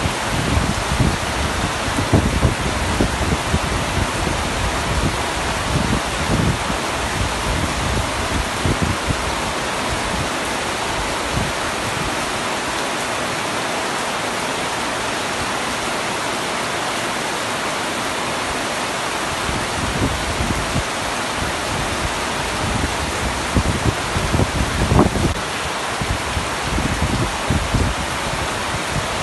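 Heavy rain pouring steadily on a camping tent roof, a dense even hiss. An uneven low rumble runs underneath through the first ten seconds or so and again near the end, dropping away in the middle.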